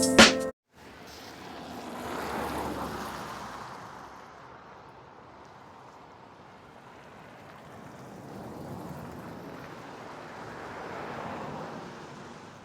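Music cuts off right at the start, then an even outdoor rushing noise swells and fades twice.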